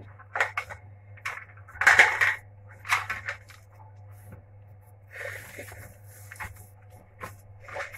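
Hands in plastic gloves kneading a fine bulgur çiğ köfte mixture with ice cubes in a tray: irregular crunching, squishing and scraping strokes, the loudest about two and three seconds in. This is the long kneading that softens the bulgur until the mixture binds.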